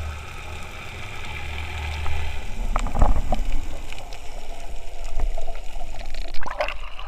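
Underwater gurgling of air bubbles escaping from a snorkel as the snorkeler breathes out, in bursts about three seconds in and again near the end, over a steady low hum for the first couple of seconds.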